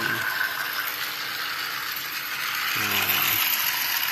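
Battery-powered toy trains running on their track, the small motors and plastic gears whirring and clicking steadily.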